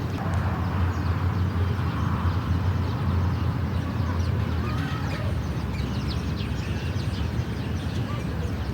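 Outdoor farm ambience: a steady low rumble with scattered faint short chirps, typical of small birds.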